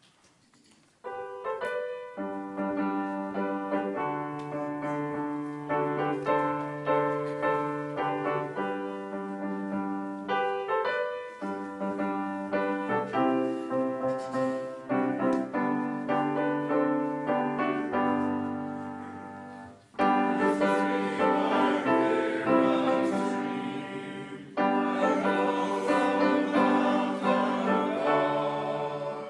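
Grand piano playing a hymn introduction, then about two-thirds of the way through the congregation starts singing the hymn with the piano.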